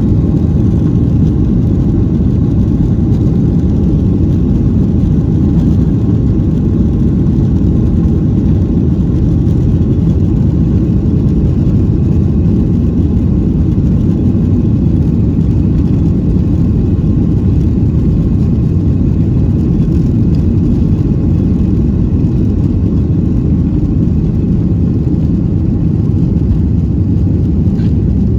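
Cabin noise inside a Boeing 737-800 airliner: a loud, steady low rumble from its CFM56-7B jet engines and the airframe, with a faint whine above it.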